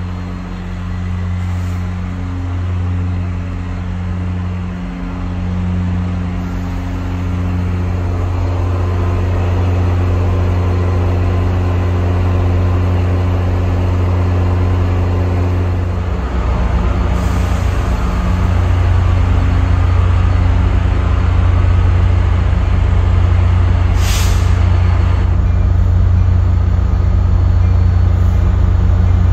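Diesel locomotive engine running steadily; it grows louder and deeper a little over halfway through, with a brief hiss later on.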